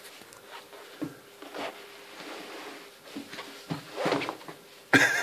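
A baby waving her arms and kicking on a padded changing mat: scattered soft thumps and rustles, with a sudden louder sound near the end.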